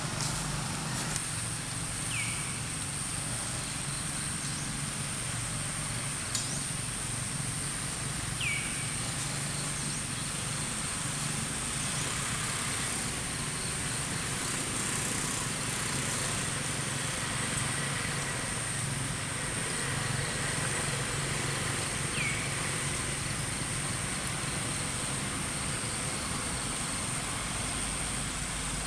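Outdoor ambience: a steady high insect drone over a low engine hum, with three short falling chirps spread through it.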